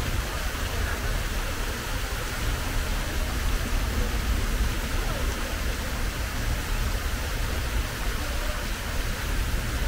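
Steady outdoor background noise with a deep low rumble and an even hiss, without distinct events.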